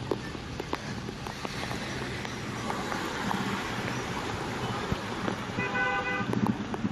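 Road traffic noise, with a vehicle horn honking once briefly near the end.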